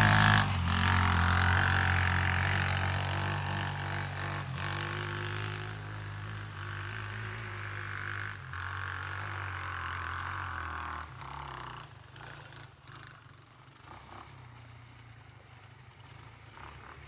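The engine of a KXD 125 cc ATV, a four-stroke single, running at close range, then fading steadily as the quad moves away. It drops off sharply about eleven seconds in and ends as a faint distant hum.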